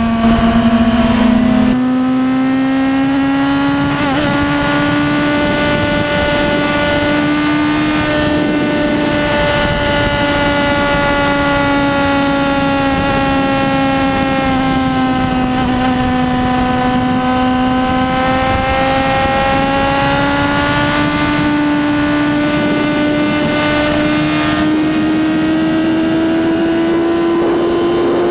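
Yamaha YZF-R1's 1000cc inline-four running at high revs at highway speed, with wind noise. The engine note sags gently through the middle, then climbs steadily over the last ten seconds as the bike accelerates hard to about 250 km/h.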